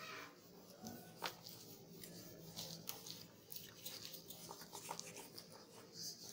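Whiteboard duster wiping marker off a whiteboard: faint, irregular rubbing and scuffing strokes.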